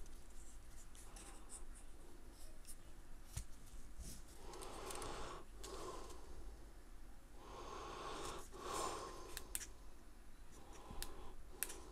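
Faint handling noise from a plastic handheld gimbal being turned over in the hands: scattered light clicks and soft rubbing, with two longer soft rushes of noise around the middle.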